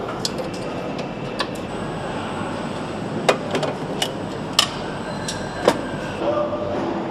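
Factory floor noise on an engine assembly line: a steady machinery rumble with a few sharp metallic clinks in the middle, and a steady hum tone coming in near the end.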